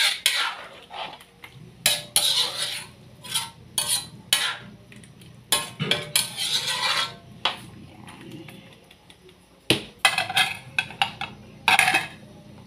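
A metal utensil stirring and scraping in a large aluminium wok of milky stew, with irregular clinks and knocks against the pan. It eases off for a couple of seconds around the middle, then there are a few louder knocks near the end.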